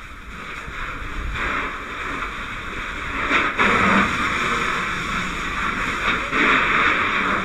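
Fire hose nozzle spraying water: a loud, steady rushing hiss that grows about a second in and swells twice more, in the middle and near the end.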